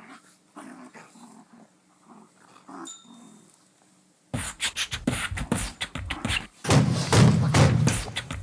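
Dogs play-fighting: soft, short growls at first, then from about halfway a sudden loud burst of snarling and scuffling that grows louder still near the end.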